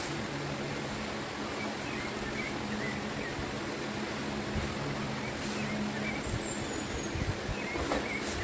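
Steady background hiss with a low hum, with faint high chirps and a few soft low thuds.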